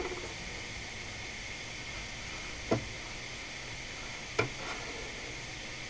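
Steady background hiss with two short, light knocks about a second and a half apart, from a circuit board being moved around on the bench.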